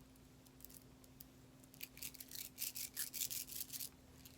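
Small magnetic beads clicking against each other in a quick, dense run of clicks starting a little under two seconds in and lasting about two seconds.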